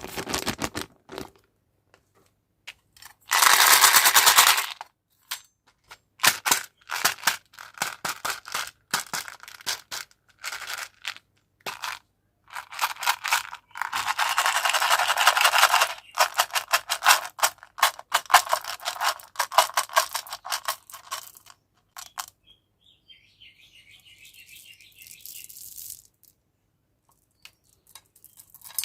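Hard-shelled candies such as Skittles and M&M's clattering in quick runs of clicks as they pour and rattle together. There are two longer, dense bursts, one a few seconds in and one about halfway through. It goes quieter near the end.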